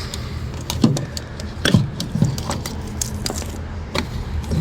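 Scattered small clicks and knocks of hands working a fuel-line connector on a car's fuel pump, over a steady low hum.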